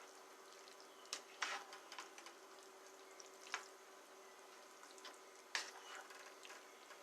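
Pot of food simmering on the stove: a few sharp pops and clicks over a faint steady hum.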